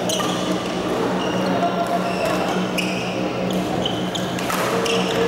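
Badminton doubles rally: sharp racket strikes on the shuttlecock and short squeaks of players' shoes on the court mat, coming every half second to a second, over a steady low hum.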